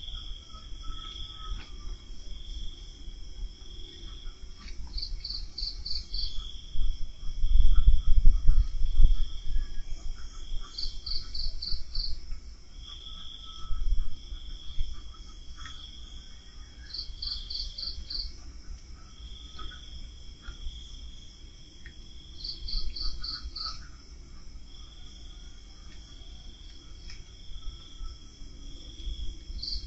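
Night insects calling in a repeating pattern: a quick run of about five high pulses roughly every six seconds, with a row of lower, longer notes between them. A low rumble swells about eight seconds in and again briefly near fourteen seconds, louder than the insects.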